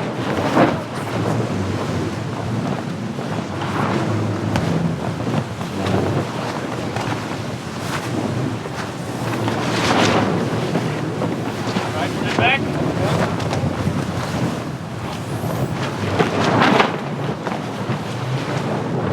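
Wind buffeting the microphone and water rushing past the hull of a VO65 ocean-racing yacht under sail, swelling louder several times as waves and spray hit.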